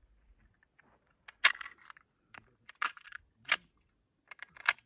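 Sharp metallic clicks and clinks as a suppressor is taken off a pistol by hand: separate sharp sounds about a second and a half in, near three seconds, at three and a half, and again just before the end.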